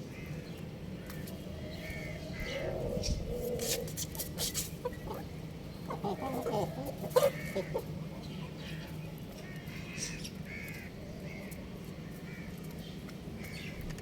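Young rooster clucking and giving short high chirps, with a few sharp clicks about four to five seconds in, over a steady low hum.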